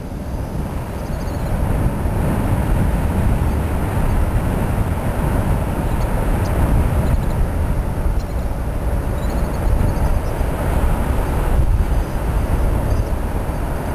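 Wind rushing over the microphone of a camera carried on a paraglider in flight: a steady, loud, low rumble of buffeting air.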